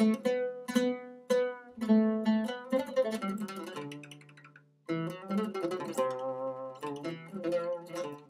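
Oud played solo, its strings picked in a melodic phrase of quick separate notes that ring briefly. About four seconds in the notes die away almost to silence, then the playing starts again abruptly.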